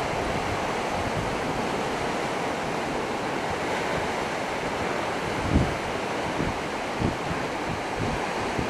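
Sea surf washing against rocks at the foot of chalk cliffs, a steady rush, with wind buffeting the microphone in brief low gusts, the strongest about five and a half seconds in.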